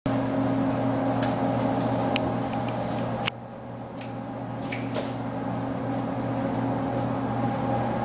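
A large machine running with a steady electrical hum, with clicks of push-button switches being pressed on its control panel. About three seconds in, a louder click comes, the hum drops suddenly and the high hiss thins out, then builds back slowly.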